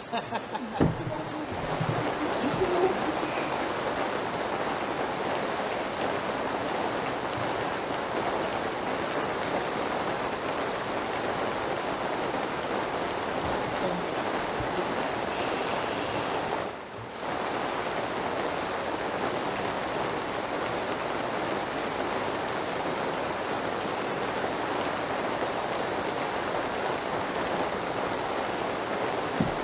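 Steady rain sound: an even hiss of rainfall that comes in about a second in, with a brief dip about 17 seconds in.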